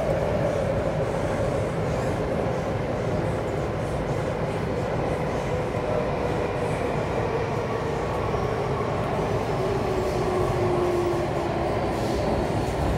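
Alstom C751A electric multiple unit running through an underground tunnel at speed, heard from inside the car: a steady rumble with a whine that slowly falls in pitch.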